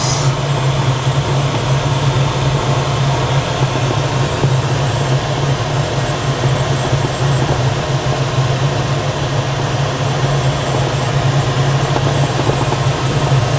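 Steady rush of airflow inside the cockpit of a DG-505 two-seat glider gliding on final approach, with a steady low hum underneath.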